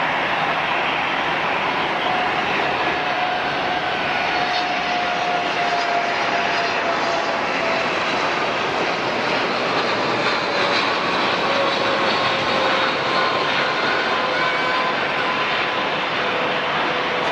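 Jet airliner engines heard as a steady, wide noise, with faint whine tones that slowly fall in pitch as the aircraft passes.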